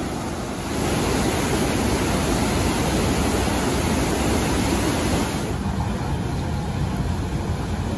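Niagara River rapids rushing over rock ledges: a steady wash of white-water noise that gets louder about a second in and eases slightly about five seconds in.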